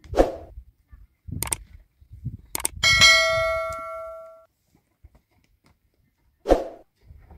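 Sharp knocks and thuds as plastic water jerrycans are lifted into a donkey's cloth saddlebags. About three seconds in, a piece of metal is struck and rings like a bell, a clang that dies away over about a second and a half.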